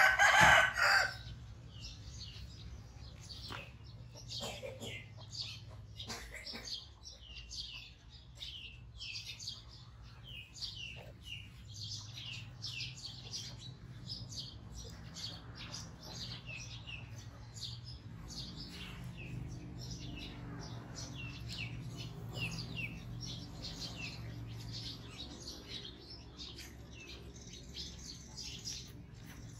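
Small birds chirping: several short, high, falling chirps a second, over a faint low hum. A loud call about a second long sounds at the very start.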